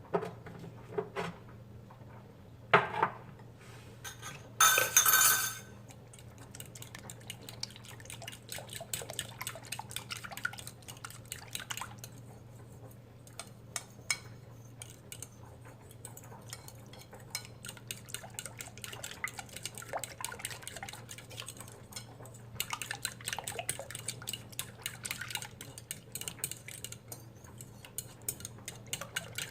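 Kitchen utensils and dishes clinking and knocking as food is prepared, with a louder noisy burst about five seconds in, over a steady low hum.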